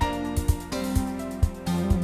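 Intro theme music with a steady beat of about two thumps a second under held chords.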